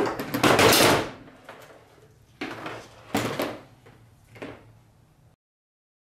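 Clattering and clanking of metal hand tools, in four sudden bursts, the first about a second long and the loudest, the others shorter, stopping abruptly a little past five seconds in.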